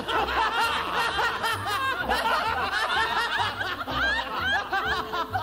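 A woman laughing hysterically in high-pitched giggles and cackles that run on without a break, with a soft bass beat of music underneath.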